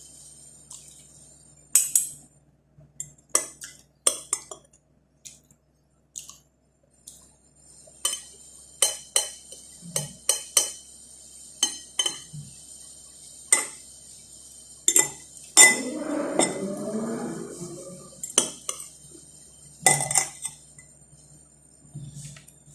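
Spoon and fork clinking against a plate while eating, a series of sharp separate clinks with a longer rough scraping stretch about two-thirds of the way through.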